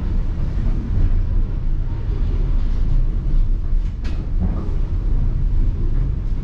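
White Pass & Yukon Route passenger train running along the track, a steady low rumble heard from on board, with a single sharp click about four seconds in.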